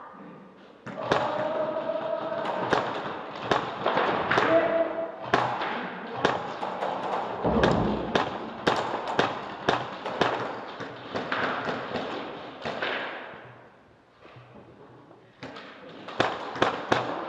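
Irregular series of sharp thuds and knocks, two or three a second, over a noisy rustle, with a low rumble about halfway and a quieter lull near the end before the knocks resume.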